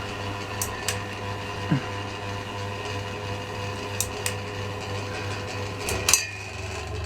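Ceiling fan motor humming steadily, with sharp clicks now and then, as it is switched by hand. Just after a click about six seconds in, the hum drops and then comes back stronger.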